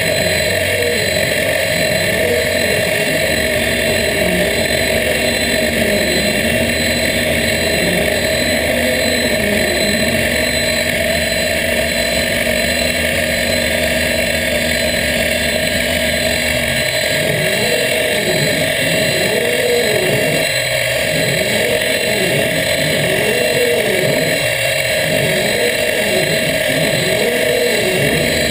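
Optimum BF20L mill converted to CNC, milling an aluminium plate with a small end mill: a steady machine whine from the spindle, with a lower motor hum under it. About halfway through, the lower hum starts rising and falling in pitch about once a second.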